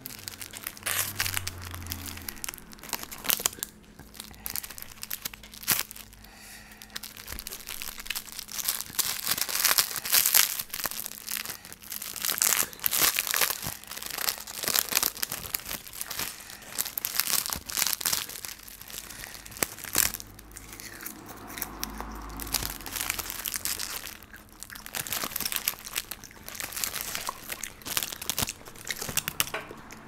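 Food packaging being handled and opened, crinkling and tearing in quick irregular crackles that swell and ease off several times.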